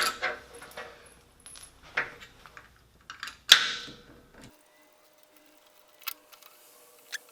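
Small steel tools and screws clinking and rattling against metal while the Trav-a-Dial is screwed to its bracket: a few sharp metallic clinks, the loudest about three and a half seconds in with a short ring, then only faint scattered ticks.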